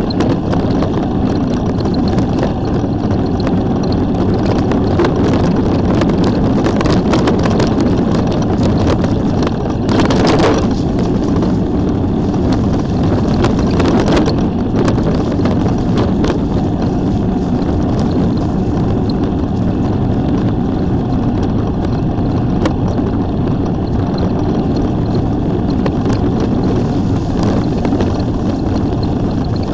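Steady wind rushing on the microphone with a low rumble, and two brief louder gusts about ten and fourteen seconds in.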